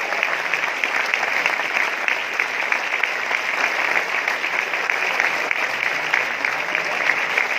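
A large audience of about 2,500 in a big theatre clapping steadily: a dense, unbroken wash of applause in a sustained ovation.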